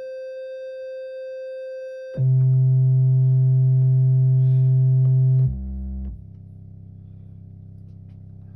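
Buchla 208C oscillator sounding steady test tones during pitch calibration, each note held for a few seconds. A higher note comes first, then the pitch steps down to a much lower, louder note about two seconds in, then a brief still lower note and a quieter low one.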